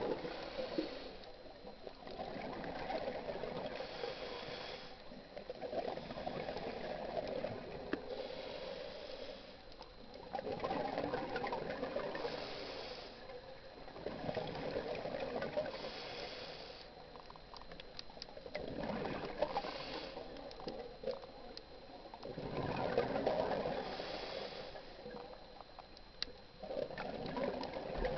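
Scuba diver breathing through a regulator underwater: bursts of exhaled bubbles gurgling every few seconds, with a quieter hiss of inhaling between them.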